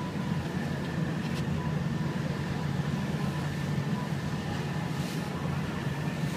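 Sightseeing boat's engine running steadily under way: a low, even drone with faint steady high tones above it.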